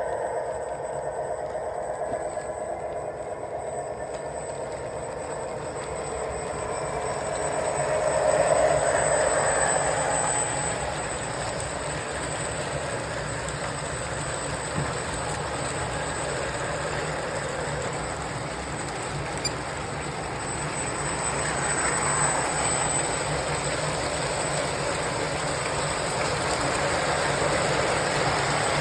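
A 3D printed model train running on its track: a small electric drive motor whines and the wheels roll and clatter steadily. The sound swells louder about eight seconds in and again about twenty-two seconds in.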